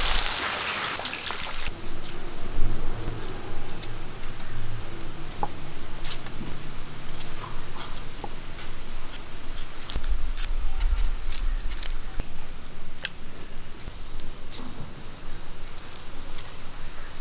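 A short sizzle of small onions frying in a pan, then a long run of small sharp clicks and crackles as papery shallot skins are peeled and trimmed with a small knife.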